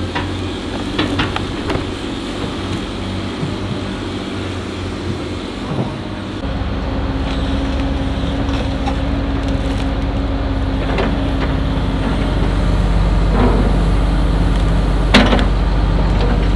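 Excavator diesel engines running under hydraulic load while digging, with a few sharp knocks of the bucket on dirt and rock. About six seconds in the engine sound steps up louder and deeper with a steady whine for several seconds.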